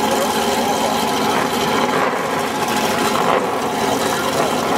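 Late-model Ford Mustang drag car doing a burnout: the engine held at high revs with the rear tyres spinning, a loud, steady running sound.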